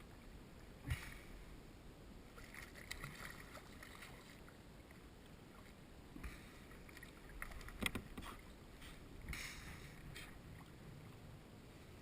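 Scattered water splashes and a few sharp knocks, the loudest knock about eight seconds in.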